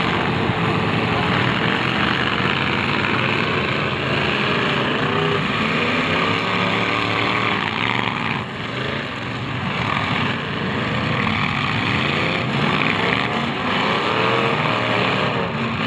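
Several demolition derby cars' engines revving hard together. Their pitch repeatedly rises and falls as the cars accelerate and back up.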